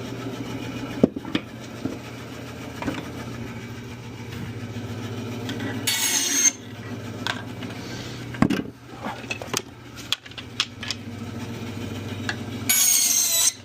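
Bandsaw running with a steady motor hum, cutting through firewood twice in short, high-pitched stretches, about six seconds in and near the end. Scattered knocks of wood being handled.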